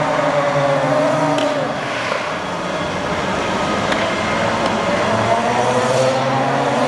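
Youth electric ATVs (CFMOTO EV110) driving around, their electric motors whining in a pitch that falls and rises again twice as they slow and speed up.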